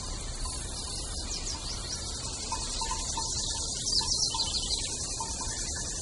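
Steady rush of a creek and small waterfall over rocks, with runs of high bird chirps: a faint run about a second in and a louder one about four seconds in.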